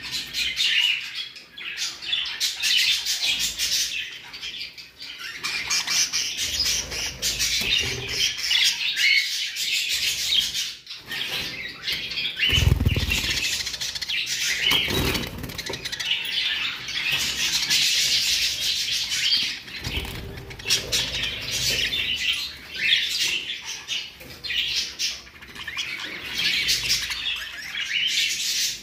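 A cage of budgerigars chattering and chirping continuously, many birds at once, with a couple of soft low thumps about halfway through.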